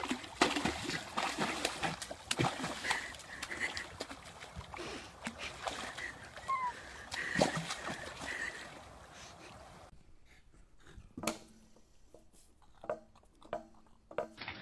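Water splashing and sloshing with scattered clicks for about ten seconds, then a few separate knocks and thumps after a cut.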